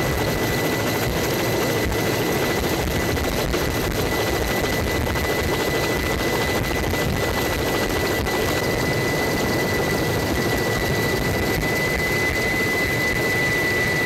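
Steady aircraft engine noise heard from inside the cabin, with a constant high-pitched whine over it.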